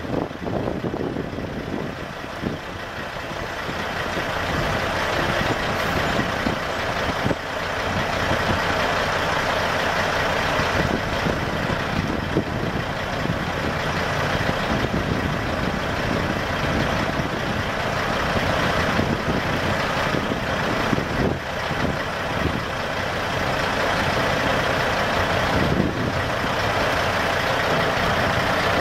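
Caterpillar C15 inline-six diesel engine of a Kenworth T800 dump truck idling steadily.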